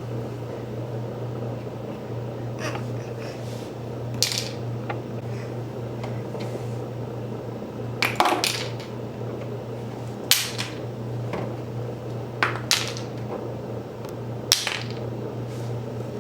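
Scattered sharp clicks and taps of small hard objects being handled and set down, about eight in all, some in quick pairs, over a steady low hum.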